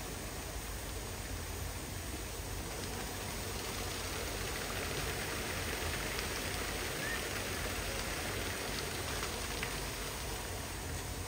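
A steady hiss of outdoor background noise, with a few faint crackles about halfway through.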